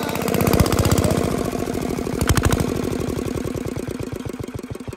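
Small diesel engine of an irrigation pumping set running with a fast, even knock. Near the end it slows and fades as the stop lever is pressed to shut it down.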